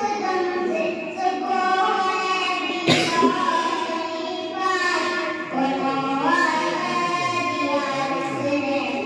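Many children's voices singing or chanting together in a drawn-out melody. A sharp knock comes about three seconds in.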